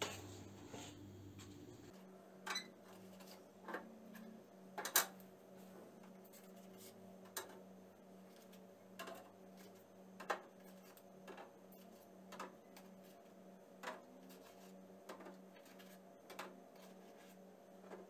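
Eggs being set one at a time into a refrigerator door's plastic egg rack: light, irregular clicks of eggshell on plastic, with soft handling of the cardboard egg carton.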